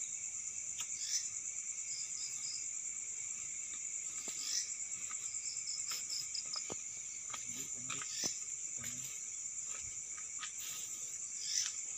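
Night insect chorus of crickets: a steady high trill with a lower steady band beneath it, broken by scattered faint clicks.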